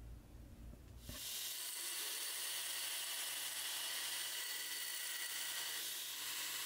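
Belt grinder grinding the face of a slotted metal handle fitting held flat against the platen: a steady, even hiss of abrasive belt on metal that starts suddenly about a second in.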